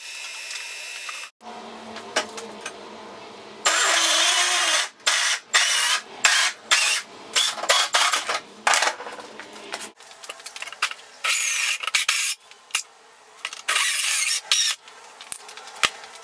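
Milwaukee portable band saw cutting steel square tubing: the motor and blade run through the metal in a string of loud stretches with short breaks between them.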